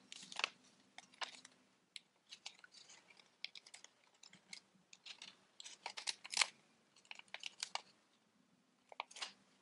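Origami paper crackling and rustling in the hands as it is creased and pressed into an inside reverse fold, in irregular crisp crackles that are busiest about six seconds in.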